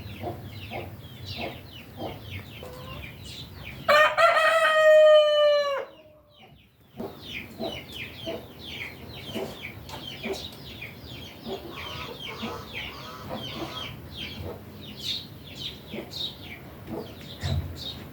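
A rooster crows once, loud and drawn out, about four seconds in, against steady quick chirping of small birds. A fainter call follows about twelve seconds in.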